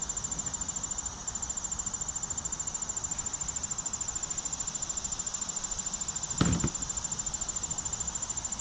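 Insects chirping, a high-pitched, rapid and even pulse that holds steady throughout, with a brief low thump about six and a half seconds in.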